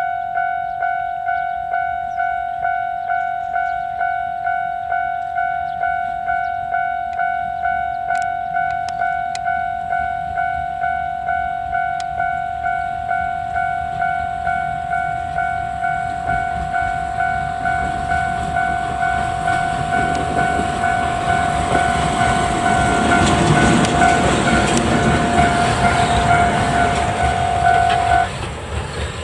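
Level-crossing alarm ringing an electronic ding about twice a second, while a train of steam locomotive C11 207 and diesel DE10 1180 comes closer and passes loudly through the crossing late on. The alarm cuts off suddenly just before the end.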